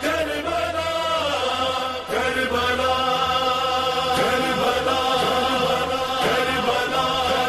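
Recorded noha, a Shia devotional lament in Urdu: voices chanting long, held notes over a steady low drone.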